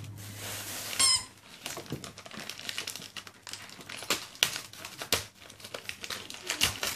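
A dog tearing and crumpling metallic foil gift wrap with its teeth and paws: a run of crinkles and rips, with one short, high squeak about a second in.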